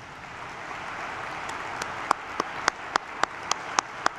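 Hall audience applauding, building up over the first second or two. From about two seconds in, loud, evenly spaced single claps cut through the applause at about three to four a second.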